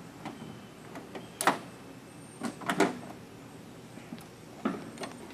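A few separate sharp metal clicks and clunks as the bonnet latches of a 1930s Alfa Romeo are worked and one side of the bonnet is raised, the loudest about a second and a half in.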